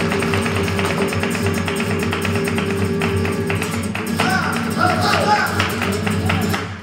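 Flamenco soleá: a Spanish guitar played under fast, dense heel-and-toe footwork (zapateado) struck on the wooden stage. A voice joins in about four seconds in, and the music cuts off suddenly at the end, closing the piece.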